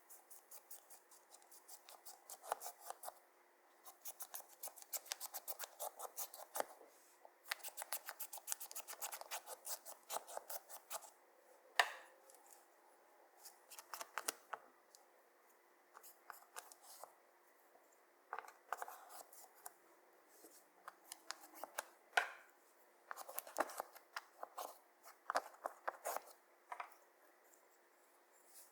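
Close-up handling sounds: crisp clicks and crackles in quick runs of several seconds with short pauses between, and a few single louder snaps, made by hands and nails working clear slime and makeup.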